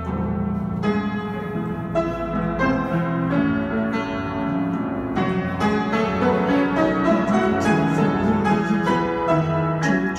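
Piano playing, with notes and chords struck one after another and left to ring.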